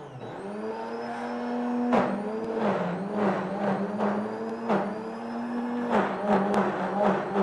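OmniBlend high-power blender running on a thick load of nut milk, basil and parsley. Its motor pitch sags briefly several times and recovers as the tamper pushes the greens into the blades, with a few sharp knocks along the way.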